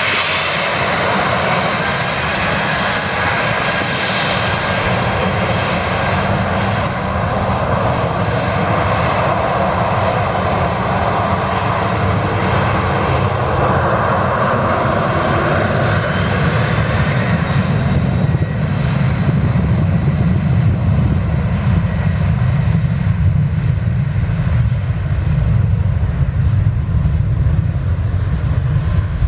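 Boeing 737-800's CFM56 turbofan engines at takeoff thrust: a loud, continuous jet roar. A high fan whine in the first part fades from about two-thirds of the way through, leaving a deep low rumble as the aircraft moves away.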